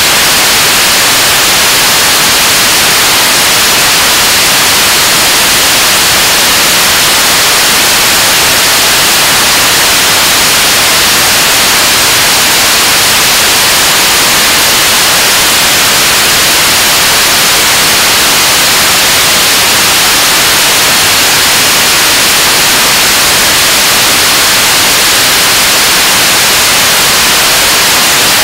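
KSLV-II 7-ton-class kerosene and liquid-oxygen rocket engine, unit No. 2, firing steadily in a long-duration hot-fire test. Its exhaust makes a loud, even rush of noise that does not change, strongest in the high range.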